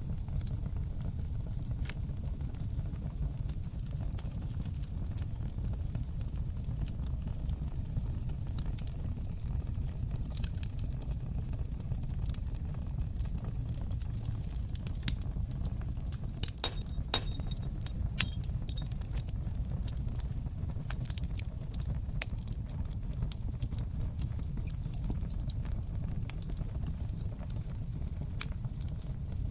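Fire burning in a fireplace: a steady low rumble of flames with scattered crackles and pops throughout, and a cluster of sharper, louder pops a little past the middle.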